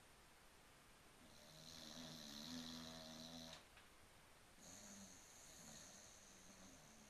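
Dog snoring softly in its sleep: one long snore starting about a second in that cuts off sharply, then a second, quieter snoring breath.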